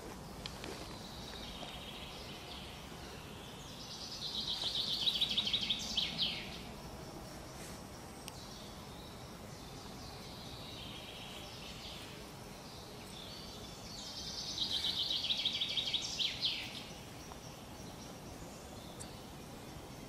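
A songbird singing twice, about ten seconds apart: each phrase is a high, rapid trill about two and a half seconds long that ends in a few sharp down-sweeping notes. Under it is a steady outdoor background hiss.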